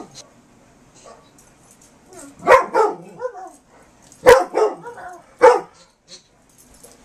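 Dog play-barking in two bursts: sharp barks about two and a half seconds in, then several more between four and five and a half seconds, with short whining yips between them. The barks come in a game of trying to get a squeak toy.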